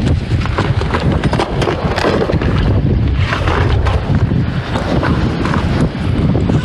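Strong wind buffeting the microphone in a loud, steady rumble.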